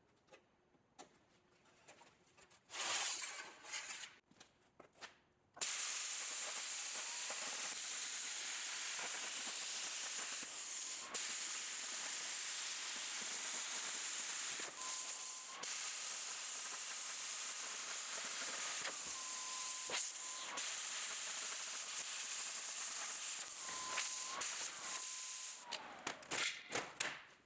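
Handheld Miller Spectrum 625 X-TREME air plasma cutter cutting 16-gauge steel sheet along a template: a steady, loud hiss starts about six seconds in and stops shortly before the end. A thin steady tone comes and goes within the hiss. A brief hiss comes about three seconds in.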